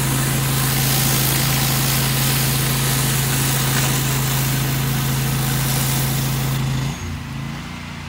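An 8-gallon-per-minute pressure washer running with its surface cleaner spraying: a loud steady hiss of water over a steady engine and pump hum. About seven seconds in the spray shuts off and the sound drops, leaving the engine running more quietly.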